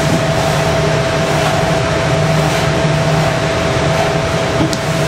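Steady hum and rush of air from the rearing room's climate-control equipment, which holds the room at a set temperature and humidity, with a steady low tone and a higher one. A light click near the end.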